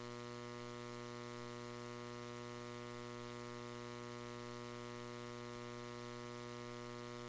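Steady electrical mains hum and buzz with a faint hiss.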